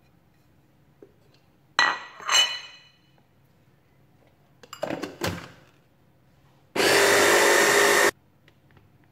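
Braun hand-blender chopper attachment running in one short burst of about a second and a half, chopping grated carrot. Before it, clinks and scraping as the carrot is pushed from a plate into the plastic bowl, then knocks as the motor unit is fitted onto the lid.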